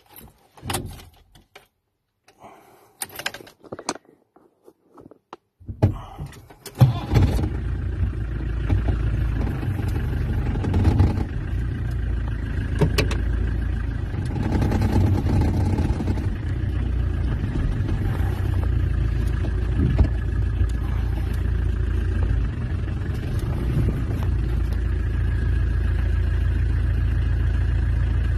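A few clicks and key rattles, then about six seconds in the Peugeot 404 pickup's XD3 four-cylinder diesel engine is started and catches, heard from inside the cab. It then runs steadily.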